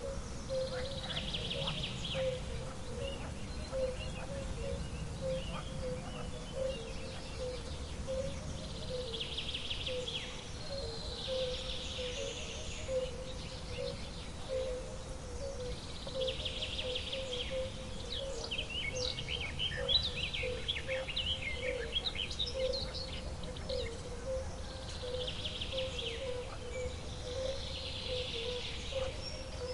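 Outdoor nature ambience of birds calling. A buzzy call returns every eight seconds or so, with a flurry of quick chirps about two-thirds of the way through. Underneath runs a steady, low pulsing note and a faint rumble.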